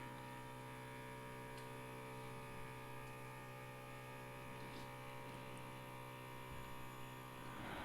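CNC T106 portable thermal stencil printer running a print: its paper-feed motor gives a faint, steady hum.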